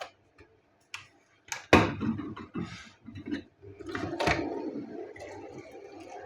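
A series of clicks and knocks of hard objects being handled. A loud knock comes just under two seconds in, followed by clattering, and another knock about four seconds in leaves a ringing tail that fades away.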